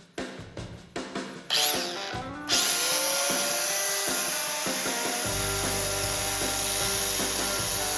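A few sharp metal clinks and knocks, then about two and a half seconds in a power grinder spins up with a brief rising whine and grinds steadily on the steel axe head, grinding out the crack before welding.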